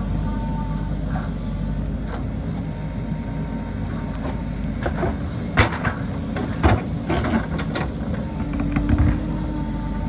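JCB backhoe loader's diesel engine running steadily under load while the backhoe bucket digs a trench. From about halfway on come several sharp knocks and clanks, the loudest a little past the middle and near the end.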